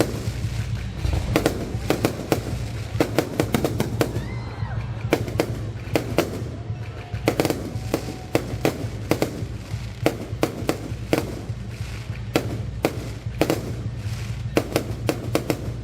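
Fireworks going off in a run of sharp, irregular bangs, often several a second, over a steady low rumble.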